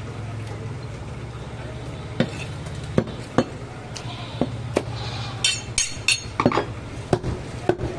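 Scattered sharp knocks of a butcher's cleaver striking a wooden chopping block, coming irregularly a few at a time, over a steady low hum.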